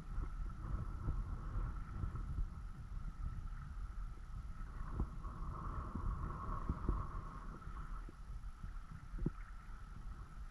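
Wind buffeting the camera microphone in uneven gusts, with occasional sharp thumps. A faint steady high hum runs underneath.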